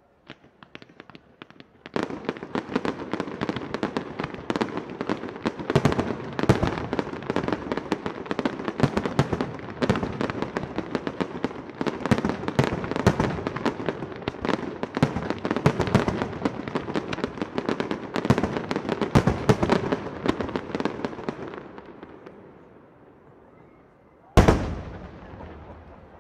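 Fireworks display: a rapid, dense barrage of shell bursts and bangs lasting about twenty seconds, then fading out. Near the end comes one loud single bang, followed by a long echoing tail.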